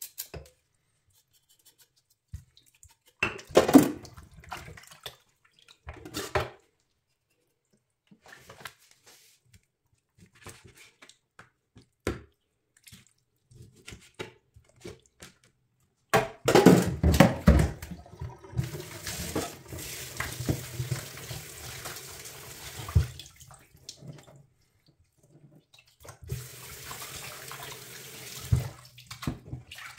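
Kitchen tap running into a steel sink, splashing over raw meat being rinsed by hand in a plastic bowl. The water starts about halfway through, stops briefly and runs again near the end. Before it come scattered knocks and scrapes of knife work on the meat and a plastic cutting board.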